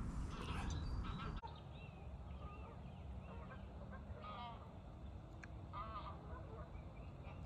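Geese honking: several separate calls a second or two apart, over a steady low background rumble.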